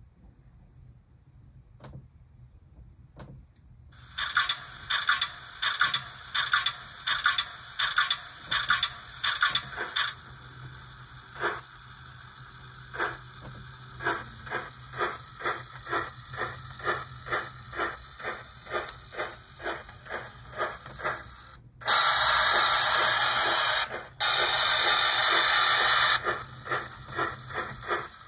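DCC sound decoder playing sampled locomotive sounds through a small speaker. After a few quiet seconds a rhythmic pulsing starts, about two beats a second. Near the end it gives way to a loud steady hiss that breaks off briefly once.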